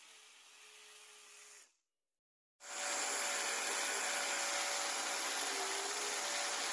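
Small electric blender motor running, grinding sliced garlic and ginger into a smooth liquid: a quieter run that stops about a second and a half in, then after a short pause a louder, steady run.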